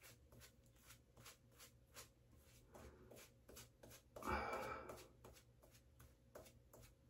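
Near silence with faint soft rubbing and small ticks as a cloth is wiped over a lathered, bearded face, and one louder rustle lasting about half a second a little after four seconds in.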